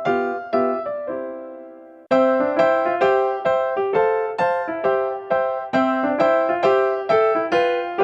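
Background piano music: a held chord fades out, then a steady run of plucky keyboard notes starts about two seconds in.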